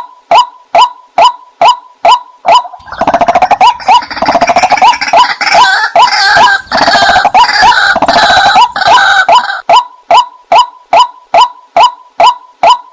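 White-breasted waterhen calls played as a lure recording: a short hooked note repeated evenly about two and a half times a second, with a louder, busier stretch of overlapping, harsher calls from about three to ten seconds in.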